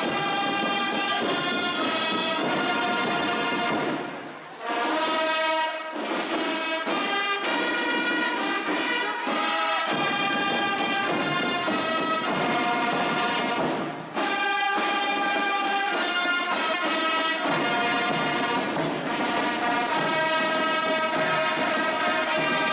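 Marching band music: wind instruments, heard as brass, play a melody in long held notes. The music breaks off briefly about four seconds in and again about fourteen seconds in.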